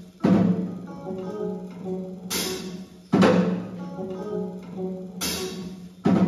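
Small live band of electric bass, electric guitar and drum kit playing a slow repeating riff over a held low note, with a loud drum-and-cymbal crash about every three seconds.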